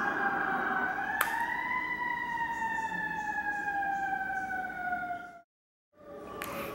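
Emergency-vehicle siren wailing, its pitch rising briefly about a second in and then falling slowly. It cuts out for about half a second near the end and returns fainter.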